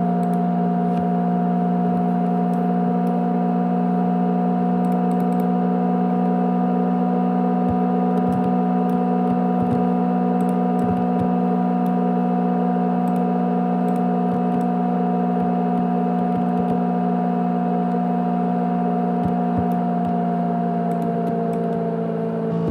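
500 GB USB hard disk drive running with a loud, steady hum made of several fixed tones, with faint scattered clicks. Its pitch sags slightly near the end.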